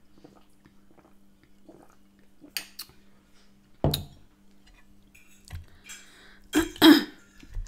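Eating sounds: soft sipping and chewing over a faint steady hum, a sharp thump about four seconds in, then a metal fork scraping and clinking on a ceramic plate near the end, the loudest sound.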